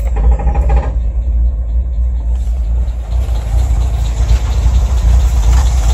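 Toyota AE86 Corolla SR5's carbureted 4A-C four-cylinder engine, cranked by the starter for about a second, then catching and idling steadily.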